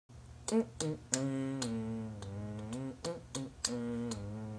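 An a cappella backing: a man's voice humming a low tune in long held notes over a rhythm of finger snaps.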